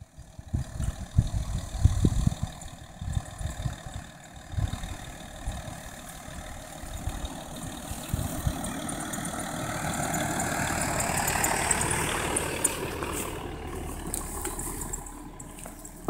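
Volkswagen Passat 2.5 TDI V6 diesel running at low revs as it creeps down a rough dirt track, growing louder as it comes close about eleven to twelve seconds in, tyres crackling over loose stones, then fading as it moves away. Irregular low rumbling thumps in the first few seconds.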